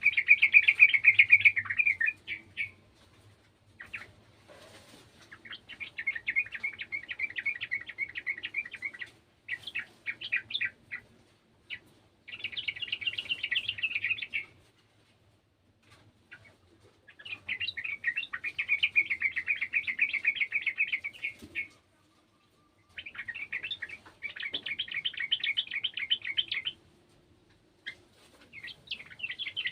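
Yellow-vented bulbul singing in repeated bursts of rapid chattering notes, each burst a couple of seconds long, with short pauses between them.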